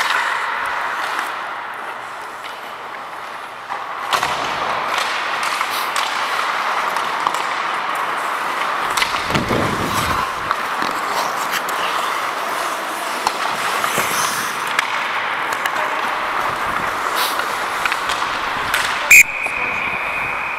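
Ice hockey play: skate blades scraping the ice, with sharp clacks of sticks and puck. Near the end a referee's whistle is blown in one long, steady blast to stop play.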